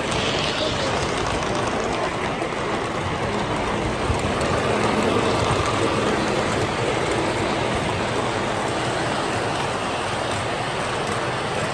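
Model train running on a layout track: a steady rumble of wheels on rails and motor hum.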